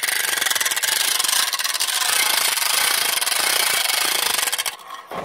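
A truck-mounted winch winding in its steel cable under load as it lifts a seed-drill hitch: a steady, loud mechanical rasp of very rapid fine clicks that stops a little before the end.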